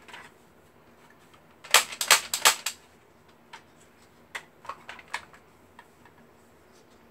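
Hard plastic of an X-Shot Ninja Quick Scope toy dart blaster being handled: a quick run of loud clicks and clatters about two seconds in, then a few lighter knocks as it is set back down on the tile floor.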